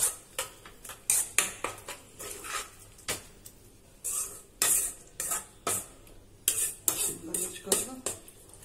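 A spoon stirring and scraping thick tomato masala around a kadai: an irregular run of short scrapes and clinks against the pan, about two a second.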